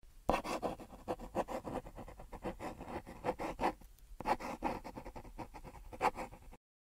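Pencil scratching on paper in quick, irregular sketching strokes, with a short pause about four seconds in; it cuts off abruptly near the end.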